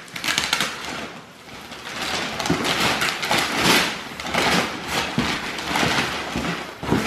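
Shiny silver gift-wrapping paper being torn open and crumpled off a large cardboard box: irregular crinkling and ripping that swells and fades in uneven strokes.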